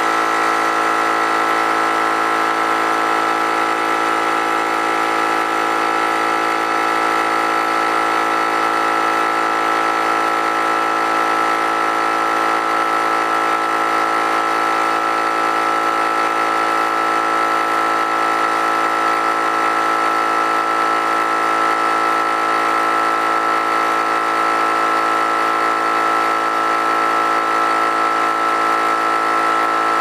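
21-gallon Central Pneumatic air compressor running steadily, pumping up its tank as pressure climbs past 100 psi toward the newly raised pressure-switch cut-out of about 115 psi.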